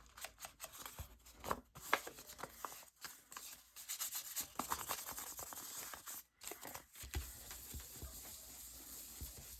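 Sheets of paper being handled and shuffled into place: irregular rustling, scraping and light taps.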